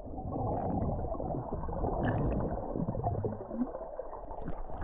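Muffled gurgling and sloshing of sea water, heard with the microphone under the surface during a swim.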